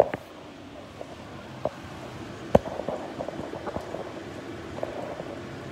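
Handling noise as a phone camera is picked up, moved and set down in a kitchen: a click at the start, another click, then one sharp knock about two and a half seconds in, followed by a run of small clatters over a steady low hum.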